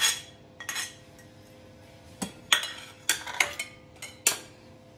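A steel spoon scraping and tapping against a ceramic plate as diced cucumber is scraped off into a dish: several short clinks and scrapes with quiet gaps between.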